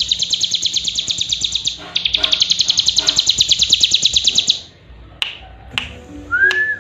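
Cigun (ciblek gunung, a prinia) singing a fast, high run of rapidly repeated notes, broken briefly about two seconds in and stopping about four and a half seconds in. After it come two sharp clicks and one short rising-then-falling note near the end.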